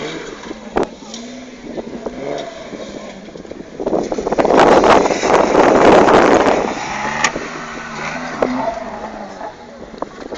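Mitsubishi Pajero off-road 4x4 engine revving up and down, its pitch rising and falling. About four seconds in comes a loud, rough surge of noise that lasts some three seconds, then the engine drops back to uneven revving.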